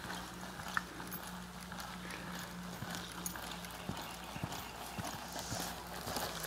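Horse's hoofbeats on the soft dirt of an arena as it jogs and lopes under a rider: a run of uneven, muffled thuds over a faint steady low hum.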